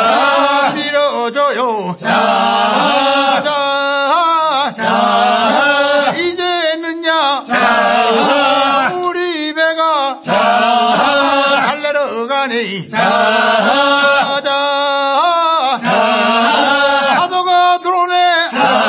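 Men's group chanting a Korean fishermen's boat-launching work song, sung while poling the boat off the shore. The singing comes in short repeated phrases, each lasting about two and a half to three seconds.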